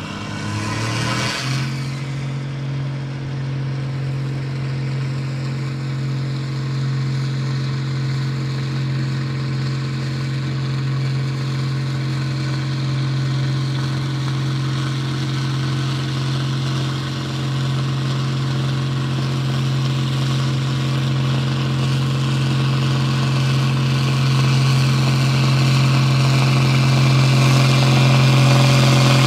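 Case IH tractor's diesel engine running flat out under load as it pulls a weight-transfer sled in a tractor pull. The revs climb in the first second or so, then hold steady, and the engine grows louder near the end.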